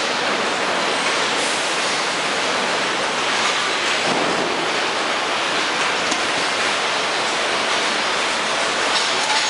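Steady din of a car assembly line: an even, dense hiss and rumble of plant machinery, with a few faint clanks.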